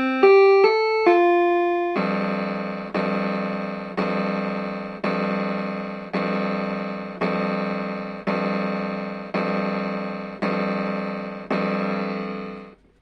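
Keyboard music: a short run of single piano-like notes, then from about two seconds in one full chord struck about once a second, each strike dying away, ten times. The chords stop just before the end.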